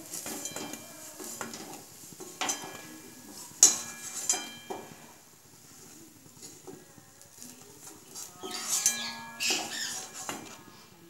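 Metal spoon scraping and clinking against the sides of a steel kadai as fried koftas are lifted out of the oil. There are scattered sharp clinks that ring briefly, the loudest a little over three and a half seconds in.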